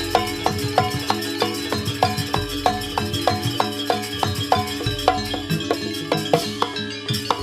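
Javanese jaranan ensemble music: a percussion beat struck steadily about four times a second over sustained pitched instrument tones.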